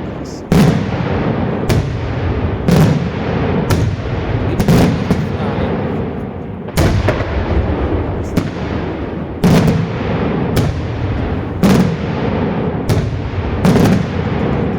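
Daytime fireworks: loud shell bursts about once a second, about a dozen in all with a brief pause midway, over a continuous rumble.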